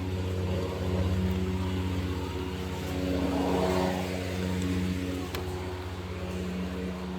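Lawnmower engine running steadily, swelling louder and easing off a couple of times.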